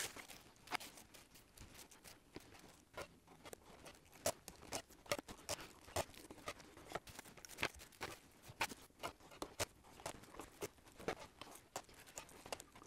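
Masking tape and plastic-bag overspray masks being handled on a model rocket: a dense run of faint clicks, crackles and tearing.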